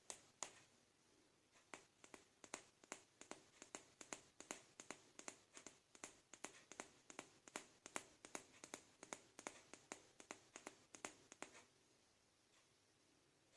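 Small hard plastic toy figures tapping and clicking against each other and a hard surface as they are handled, a run of light sharp clicks at about two to three a second that stops shortly before the end.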